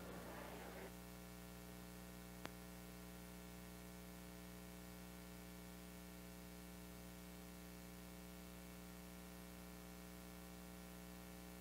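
The last piano chord dies away in the first second, leaving near silence with a steady low electrical hum. One faint click comes about two and a half seconds in, and the sound cuts off at the end.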